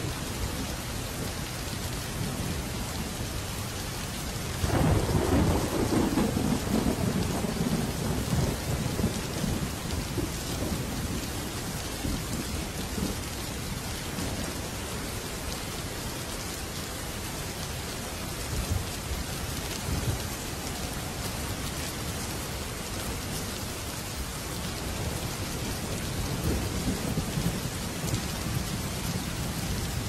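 Heavy rain pouring steadily onto wet ground. A roll of thunder breaks about five seconds in and rumbles away over several seconds, and a softer rumble swells near the end.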